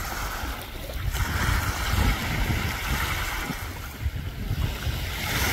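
Wind on the microphone over a steady wash of small waves, with no pitched or engine-like sound.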